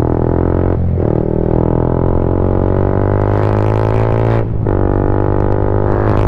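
Yamaha MT-15's 155 cc single-cylinder engine through an SC Project full exhaust system, a steady drone under riding load that briefly drops away twice, about a second in and about four and a half seconds in.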